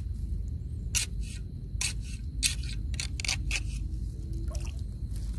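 Quick, sharp splashes and clicks in shallow water, about six of them irregularly spaced with three close together near the middle, over a steady low rumble.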